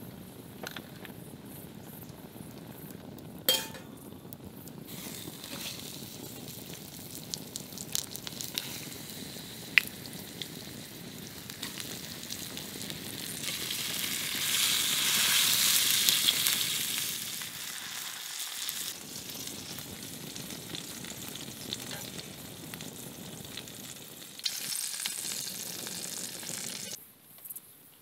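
Whole fish frying in oil in a frying pan over a wood fire. The steady sizzling swells for a few seconds about halfway through, as the fish are turned, and a few sharp clicks are heard earlier.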